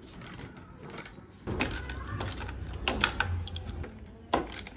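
Spanners and metal carrier parts clicking and knocking against the motorcycle's rear frame as the carrier is fitted: a string of short, irregular clicks and taps.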